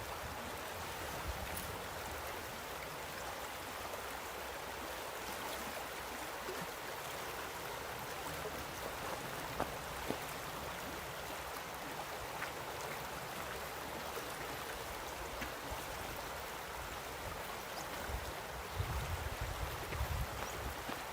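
River water flowing steadily, an even rushing wash. Some low rumbling bumps come in near the end.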